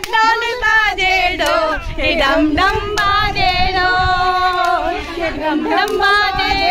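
A group of women singing a Hindi song together, unaccompanied, with long held notes around the middle. Wind rumbles on the microphone underneath.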